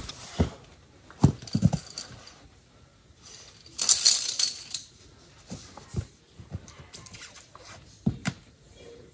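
Scattered knocks, clinks and scrapes of a climber on a via ferrata: boots striking and scuffing the rock and lanyard carabiners knocking on the steel cable, with a short rustling hiss about four seconds in.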